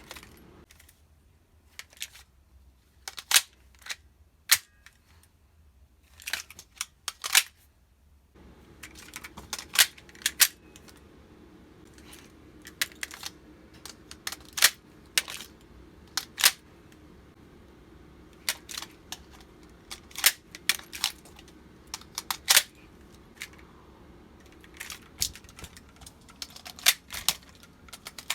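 Airsoft HK VP9 pistols being reloaded: a long series of sharp clicks and clacks, some single and some in quick clusters, from magazines being dropped out and seated and the pistols' actions working.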